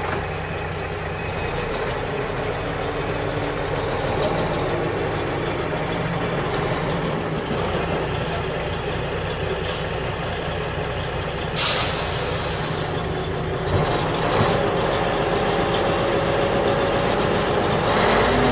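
Steady engine-like running of a mini tractor or mini construction machine, with a short hiss about twelve seconds in.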